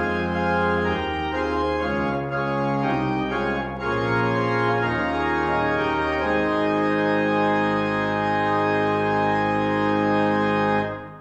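Church organ playing sustained chords that change several times, then a final full chord held for about four seconds and released near the end: the closing chord of the piece.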